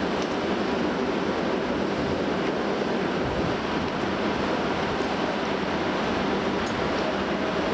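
Steady, even rumble of the Sakura Express diesel railcars running as they pull slowly away, mixed with wind on the microphone.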